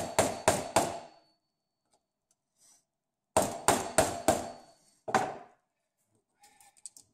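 A hammer striking the end of a screwdriver used as a chisel on a microwave-oven transformer's welded steel core, breaking the welds so the end piece comes off. The blows come quickly, about three a second: four at the start, a pause, then five more, with faint small clicks near the end.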